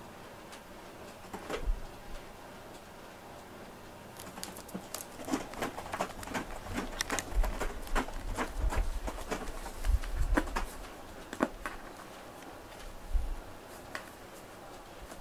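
A cat climbing into a cardboard box and settling in it: crinkling and scraping of cardboard with light taps and bumps, a dense run of sharp rustles from about four seconds in to about twelve, then a few single scrapes.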